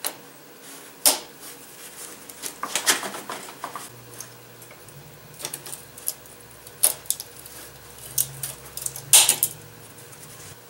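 Metal hand tools clinking and a small ratchet wrench clicking, in irregular sharp clicks with a few quick clusters; the loudest are near the start, about 3 seconds in, and near the end.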